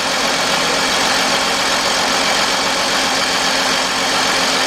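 Mercedes-Benz E320 inline-six idling steadily with a cylinder 6 misfire, heard close up in the open engine bay.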